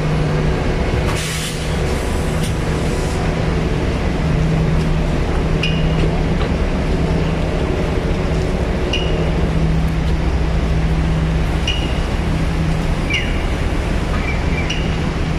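Street traffic ambience by a bus stop: a steady low engine hum from idling vehicles, a short hiss about a second in, and short high chirps every couple of seconds in the second half.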